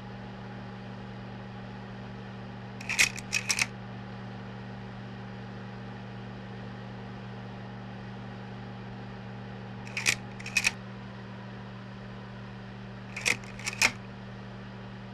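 Projector running with a steady hum, broken three times by quick clusters of two to four sharp mechanical clicks as the frames are advanced.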